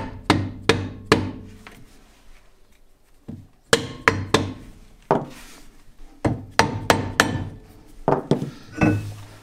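Mallet knocking on a VW Beetle rear brake drum: about fifteen sharp strikes in quick clusters of three or four, with a pause of about two seconds near the start.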